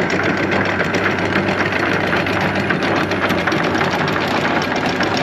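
An engine running steadily, a low hum with rapid, even ticking over it.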